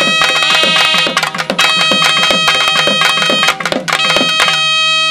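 Naiyandi melam folk ensemble playing: a loud, held reed-pipe melody over fast, dense drumming.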